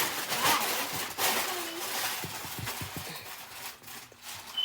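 Wrapping paper crinkling and rustling as it is handled, crackling noise that fades off toward the end.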